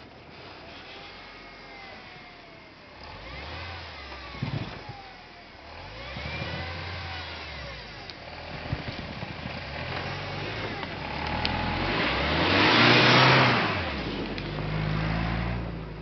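SsangYong Kyron SUV's engine revving up and down several times as it crawls through deep snow over a stream. It is loudest about three-quarters of the way through, with a rush of noise from the tyres churning snow, then runs steadier.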